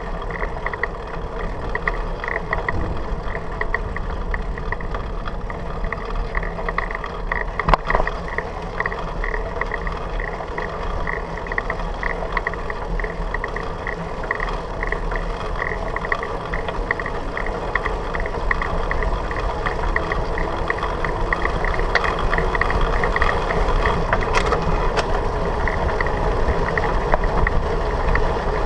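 Bicycle rolling along a paved path, picked up by a camera on the handlebars: steady tyre and frame rattle with an even, quick ticking, growing louder as the bike speeds up. A single sharp knock about eight seconds in.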